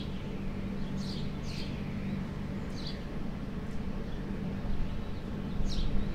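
A bird repeating short, high chirps that slide down in pitch, at uneven intervals, over a steady low hum.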